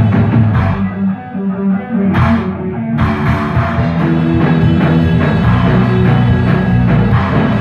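Rock band playing live: a drum kit, an electric guitar and a bass guitar. The cymbals drop out about a second in, and the full band comes back in sharply about three seconds in.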